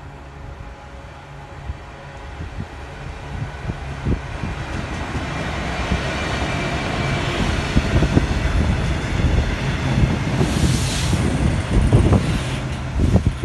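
Class 66 diesel locomotive with its EMD two-stroke V12 engine, drawing two merry-go-round coal hopper wagons past at speed. The engine drone builds steadily as it approaches and passes, with a brief hiss about ten seconds in and knocks from the wagon wheels near the end.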